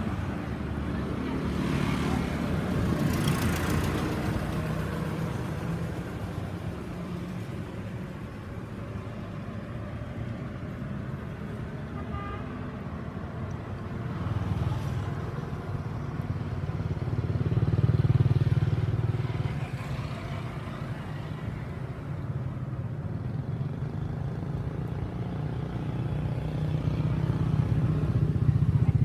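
Low rumble of motor vehicle engines going past, swelling and fading: once a few seconds in, again past the middle, and once more near the end.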